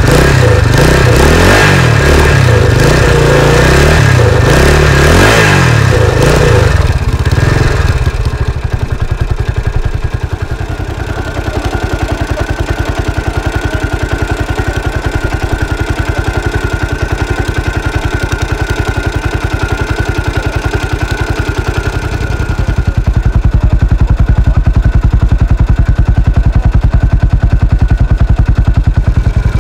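1983 Husqvarna 510 four-stroke single-cylinder dirt bike engine being revved in repeated rising and falling blips for the first several seconds. It then settles to a steady idle and runs louder and steadier again from about two-thirds of the way through.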